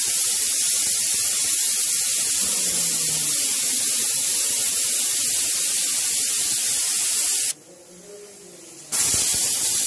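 Pressure cooker whistling: pressurised steam hissing out loudly and steadily under the Bajaj cooker's weight valve, the whistles counted to time cooking rajma. The hiss cuts off suddenly about seven and a half seconds in and starts again a second and a half later.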